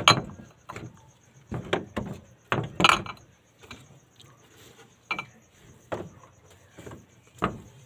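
Irregular knocks and clinks of glass jars and plastic bottles being picked up and set down on a wooden crate shelf, loudest right at the start and again around three seconds in.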